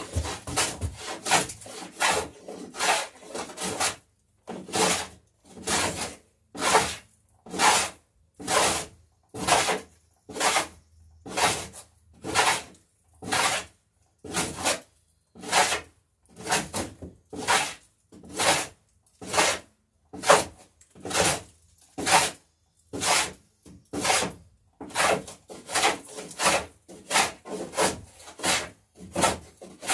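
Hand plane shaving the edge of a wooden boat plank, cutting the bevel on the garboard plank. Each pass is a short shaving stroke, about one a second, coming quicker at the start and again near the end.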